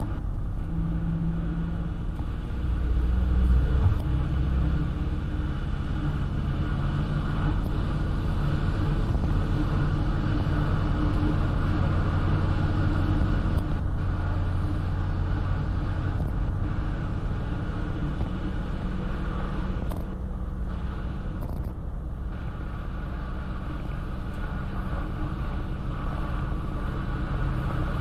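Car driving along at a steady pace: a low, even engine and road rumble that swells briefly about three seconds in.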